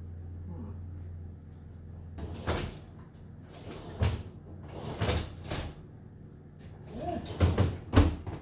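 A series of knocks and clunks, about six, the loudest near the end, from dishwasher parts and packaging being handled and put away. A steady low hum stops about a second and a half in.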